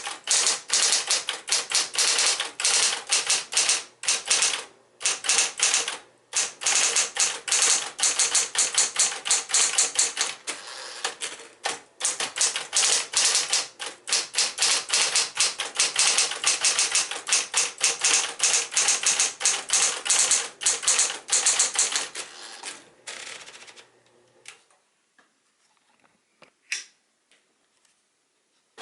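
Smith-Corona Electra 120 electric portable typewriter typing at a fast pace, rapid sharp keystroke clicks with a few short pauses, its motor humming underneath. The typing stops a little over twenty seconds in, the motor hum ends shortly after, and a few isolated clicks follow.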